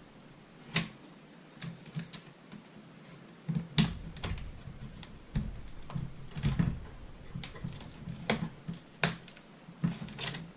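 Irregular small clicks and taps of hands and a plastic pry tool working on a laptop's LCD panel and screen housing, with a couple of duller knocks about four and six and a half seconds in.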